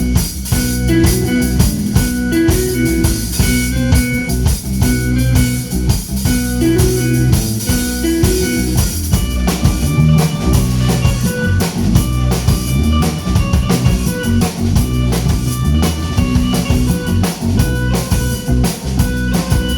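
Live band playing an instrumental passage: electric guitar and bass over a drum kit, with no singing.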